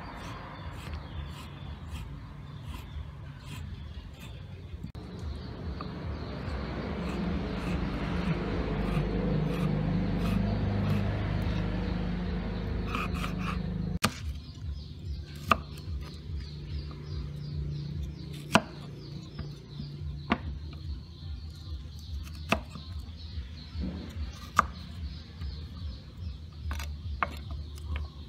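Cleaver blade knocking and tapping on a wooden chopping board while slicing chicken gizzard, then, after a cut about halfway through, sharper single knocks every second or two while cutting ginger root. A low background hum swells and fades in the first half.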